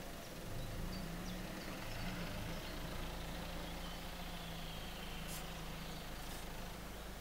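A low, steady engine hum, as of a vehicle running, swelling about half a second in and easing near the end. A few faint high chirps and two short ticks sound over it.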